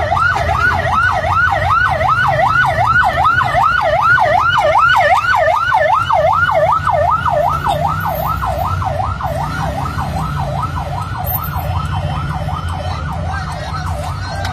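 Emergency vehicle's siren on a fast yelp, the pitch sweeping up and down about three times a second. It starts suddenly, is loudest a few seconds in, then slowly fades. A low vehicle engine rumble runs underneath, heard from inside a vehicle cabin.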